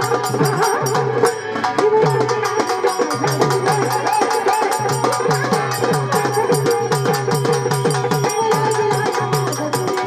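Traditional Marathi folk music: a fast, steady drum and percussion beat under a wavering melody line.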